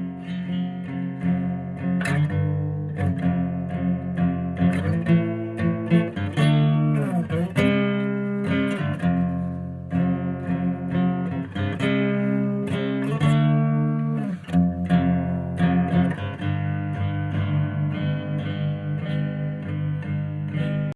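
Guitar played to imitate an old single-wing propeller plane: plucked, sustained notes with pitch slides that dip and rise, most clearly about seven seconds in and again around fourteen seconds.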